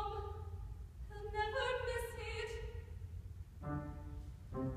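A woman's voice singing opera, holding several long notes, then quicker notes near the end, with faint instrumental accompaniment.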